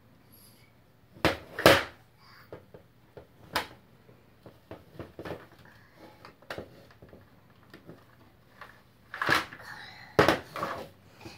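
Hard plastic clacks and knocks from a toy shape-sorter cube as shape blocks are handled, pushed into its holes and its lid is worked: single sharp clicks at irregular intervals, the loudest a pair near the start and another pair near the end.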